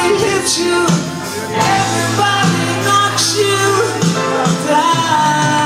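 Live rock band playing, with acoustic guitars and singing, recorded on a phone in a concert hall.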